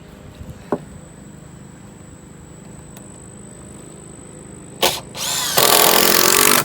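Power drill spinning up and driving a screw into a dock board: a sharp click, then the motor rising in pitch and running loud and steady for about a second near the end. Before that there are only a couple of small clicks.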